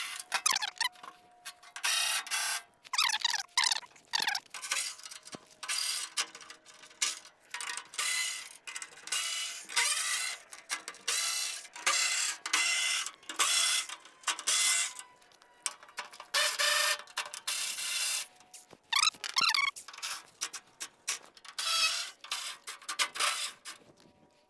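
A ratchet wrench working old bolts loose, clicking in short runs about a second apart with squeaks from the turning fasteners.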